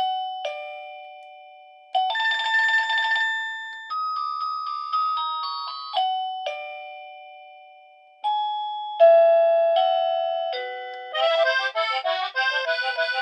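JSIEEM wireless doorbell receiver's speaker playing its preset melodies one after another, about half a dozen in turn, each a couple of seconds long. They include falling two-note electronic ding-dong chimes and short beeping tunes, each note sounding sharply and dying away.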